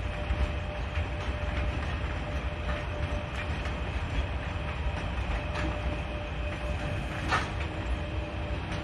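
Train running on rails: a steady low rumble with scattered wheel clicks and knocks, one sharper knock near the end.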